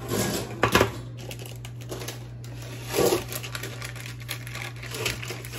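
Parchment paper crinkling and a metal baking pan knocking against a wire cooling rack as a pan of baked bars is handled and tipped out. A couple of sharp knocks come just under a second in, with further rustles about three and five seconds in.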